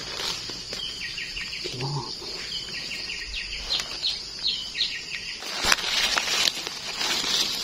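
A bird calling in groups of short, falling chirps over a steady high-pitched insect drone. From about five and a half seconds in, dry leaf litter rustles and crackles as a gloved hand rummages through it.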